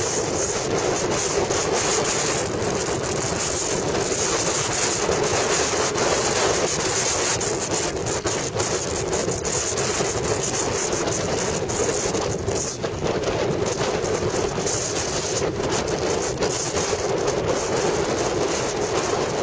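Steady rush of wind and road noise from a motorcycle riding at highway speed, with a constant drone underneath.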